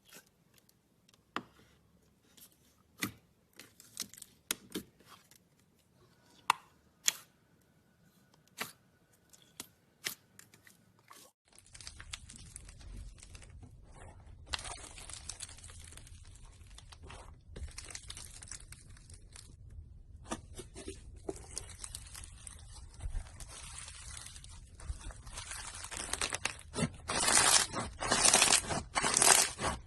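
Slime being handled and squished: scattered sticky clicks and pops, then from about 11 seconds in a continuous crackling, crunching sound that gets louder near the end.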